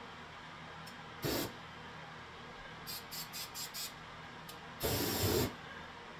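Aerosol spray can being sprayed in short hissing bursts: a brief burst about a second in, five quick puffs around three seconds in, then a longer, louder burst near the end.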